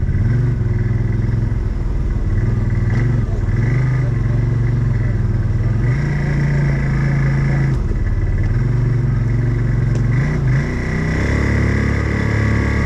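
Odes 800 off-road vehicle's engine running under way, its revs rising and falling in steps. About eleven seconds in, the engine note drops lower.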